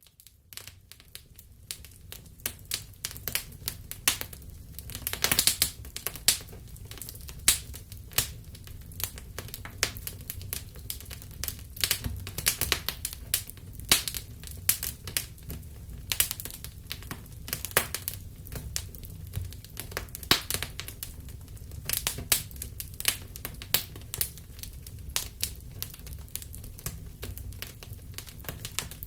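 Wood fire burning in a fireplace, crackling and popping irregularly over a low steady rumble, fading in at the start.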